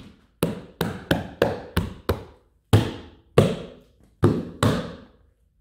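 Open hand slapping a Tesla Model 3's window glass and roof, about ten sharp thumps in uneven quick groups, each ringing briefly in the garage before the next.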